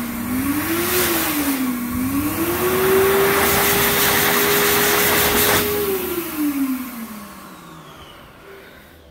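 PHS Airstream Whisper electric hand dryer blowing, with rushing air and a motor whine that wavers up and down twice and then holds steady. About six seconds in the air cuts off and the motor spins down with a falling whine that fades away.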